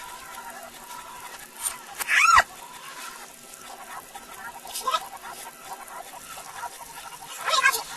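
Sped-up, reversed recording of a boy's screaming: short, squeaky, animal-like squeals that sweep up and down in pitch, loudest about two seconds in, with more near five seconds and near the end, over a steady background hiss.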